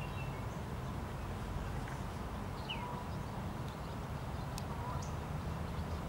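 A few faint, short bird chirps, one sliding down in pitch about halfway through, over a steady low background rumble, with one sharp click near the end.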